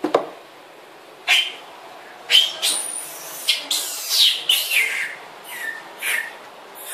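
Baby macaque crying in a run of shrill, high-pitched screams, many falling in pitch, the infant's distress calls as it begs to nurse. A sharp thump sounds right at the start.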